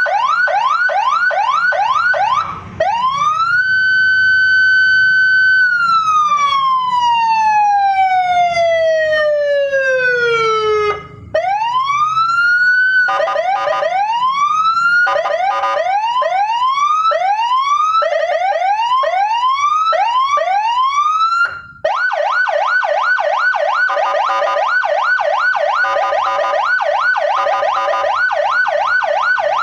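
Custom Senken police-escort electronic siren on a car, stepping through its tones. It starts with fast rising yelps, then rises to a held high pitch and falls slowly in a long wail. Next come rising whoops about one a second, and it ends with a fast yelp of several rises a second, with short breaks between patterns.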